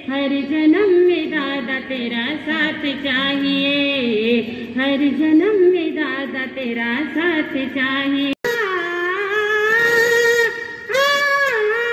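A Jain nun singing a devotional melody solo, her voice sliding and ornamenting between notes. About eight seconds in there is a very short break, after which she sings on in a higher, brighter tone.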